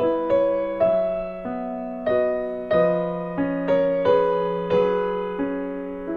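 Slow, gentle piano music: single notes struck about every half second or so and left to ring and fade.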